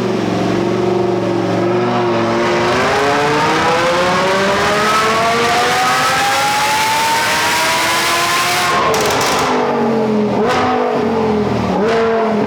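Supercharged Lamborghini Huracán 5.2-litre V10 making a full-throttle dyno pull: the engine note climbs steadily for about six seconds, then the throttle closes about nine seconds in and the revs fall with a few sharp pops and blips.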